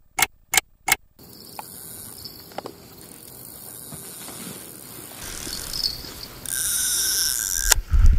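A clock ticking sound effect: about six sharp ticks over silence in the first second. Then quiet lakeside ambience until, near the end, a steady high-pitched sound runs for about a second as a fish takes line on a carp rod, followed by a click and rough handling noise as the rod is picked up.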